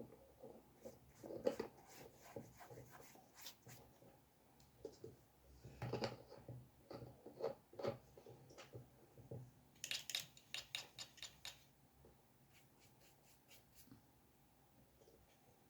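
Drawing tool scratching and tapping on paper: a faint, irregular run of short strokes and clicks, with a denser cluster of scratches about ten seconds in, then lighter ticks.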